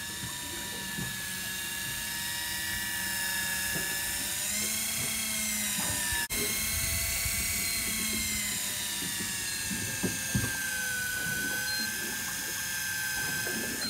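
Daiwa electric fishing reel's motor winding in line: a steady high whine whose pitch sags and recovers twice, with a brief break about six seconds in.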